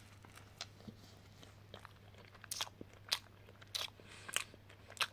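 Close-up chewing of a mouthful of steak sandwich with rocket on grain bread: irregular soft crunches and mouth clicks, with a few louder crunches in the second half, over a faint steady low hum.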